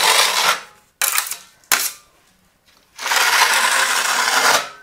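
Steel plastering blades scraping over wet gypsum plaster on a wall: one long scraping stroke that ends about half a second in, two short metallic clicks, then another long scrape from about three seconds in.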